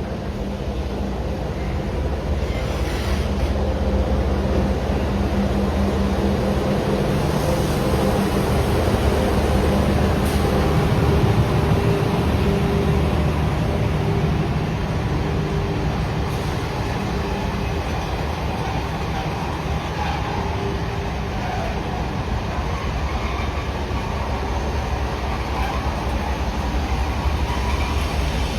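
A train running by with a steady low rumble and drone, growing to its loudest about eleven seconds in and then easing off.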